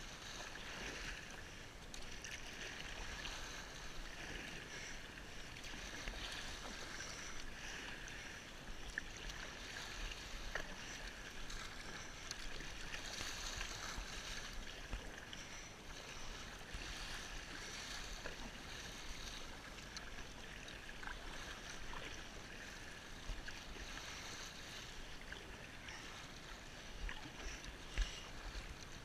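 Choppy sea water swishing and splashing against a kayak's hull as it is paddled through the waves, a steady rush with small splashes throughout. One sharp knock near the end.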